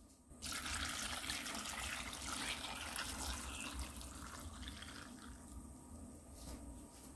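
Hot soy-sauce pickling brine poured from a pot onto garlic scapes in a glass bowl: a steady splashing pour that starts sharply about half a second in and thins out toward the end.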